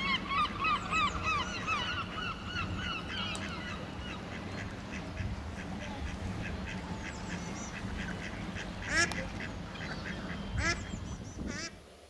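Waterfowl calling: a fast run of honking calls in the first few seconds, then scattered calls, with two louder calls near the end before the sound cuts off.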